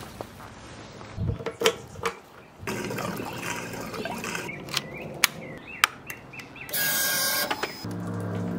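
Scattered clicks and knocks of hands and tools on a motorcycle, with a short hiss about seven seconds in. Near the end the Triumph Daytona 765 Moto2's three-cylinder engine starts and settles into a steady idle.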